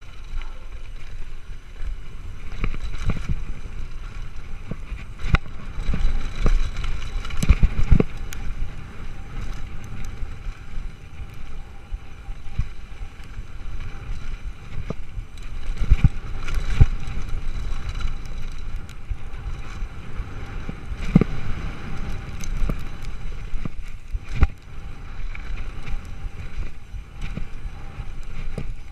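Mountain bike descending a loose gravel and rock trail: continuous tyre rumble and rattle from the bike, with several sudden knocks as the wheels hit rocks and bumps, over wind noise on the camera microphone.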